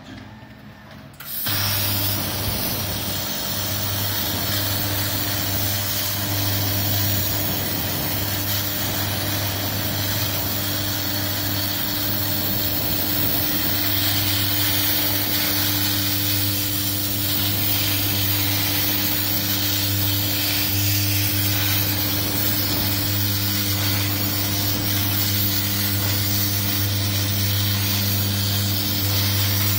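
CNC plasma cutter torch firing about a second in and cutting sheet steel: a loud, steady hiss with a low hum underneath.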